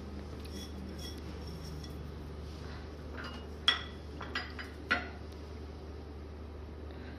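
A spatula knocking against a stainless steel pot while vermicelli are stirred into hot milk: a few light clinks, the two loudest nearly four and five seconds in, over a steady low hum.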